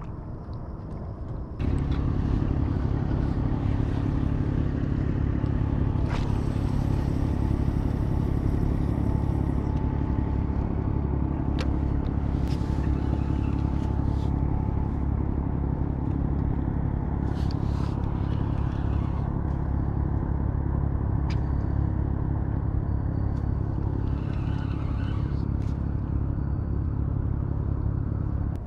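Engine running steadily at an even pitch, starting abruptly about two seconds in, with a few sharp clicks and scrapes over it.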